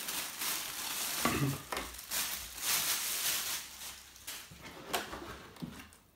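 Plastic bag wrapping crinkling and cardboard packaging rustling as the parts of a boxed laminator are handled, with a few light knocks. The crinkling is densest in the first few seconds and thins out later.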